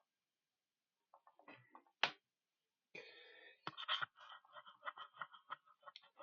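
Computer mouse clicks and keyboard keys tapped: a few scattered clicks with one sharp loud click about two seconds in, then a quick run of light taps in the second half.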